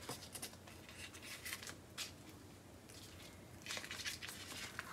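Faint rustling and a few light clicks of kitchen handling: dough sheet on baking paper being worked and meat filling being spooned from a bowl.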